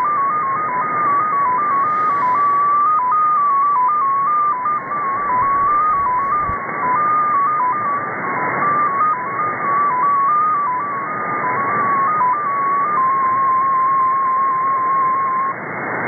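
Russian XPA2 numbers station's 14-tone MFSK data signal received on shortwave in upper sideband: a single tone hopping between several pitches several times a second over steady static hiss, a very short message. About 13 seconds in it settles on one steady tone, which stops shortly before the end, leaving only the static.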